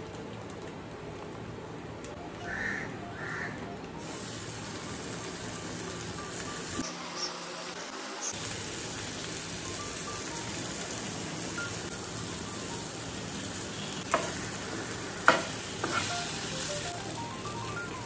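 Vegetables sizzling as they are sautéed in a frying pan and stirred, with two sharp knocks against the pan about 14 and 15 seconds in. Soft background music plays underneath.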